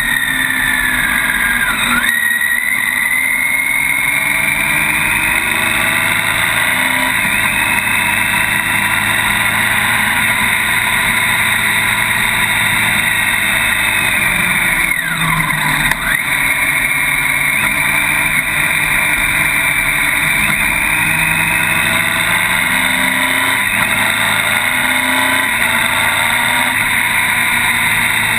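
Motorcycle running down a steep mountain road, heard from a camera on the bike with wind noise. The engine note shifts with throttle and gears, and a high whine dips sharply about 2 s in, again about halfway, and at the very end.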